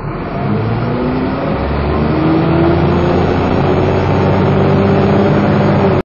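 Dennis Trident 2 double-decker bus accelerating hard, heard from inside the lower deck: the engine note and its whining "hoover" tone climb slowly in pitch, growing louder over the first two seconds, with a deep drone coming in about a second and a half in.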